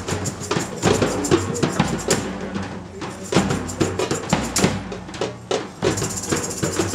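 Live hand drumming: a davul bass drum with frame drums and goblet drums beating a fast, dense rhythm over a low steady tone.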